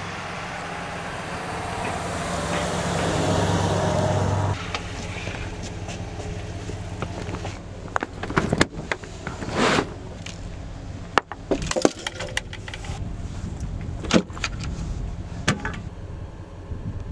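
A Chevrolet SUV towing a boat trailer drives up past, its engine and tyre noise growing louder and then cutting off about four and a half seconds in. After a pause, scattered knocks and clatters of gear being handled in the boat.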